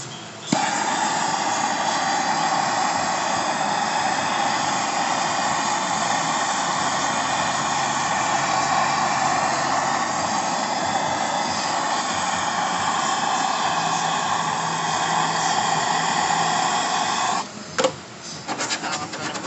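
Heat gun blowing steadily, switched on about half a second in and off near the end, heating a quarter-panel seam to soften the bond so the panel lifts off.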